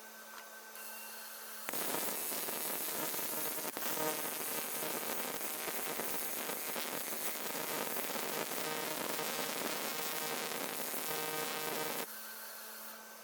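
Electric welding arc on the cracked aluminium alloy wheel, a steady crackling hiss that starts abruptly a couple of seconds in and cuts off about ten seconds later.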